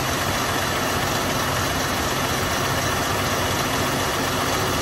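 2018 Dodge Durango's 3.6L V6 engine idling steadily with the AC on, while the electric radiator cooling fan stays silent. The fan is not running although the computer is sending it a signal, which the owner takes for a failed cooling fan, the cause of the engine overheating at idle.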